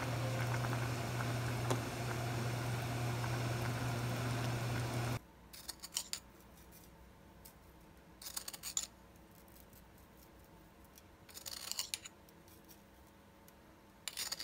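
A steady hiss with a low hum from a pot of pomelo peel simmering in sugar syrup, cutting off suddenly about five seconds in. Then four brief, crisp rustling patters of granulated brown sugar being shaken from its plastic bag over candied pieces in a tray.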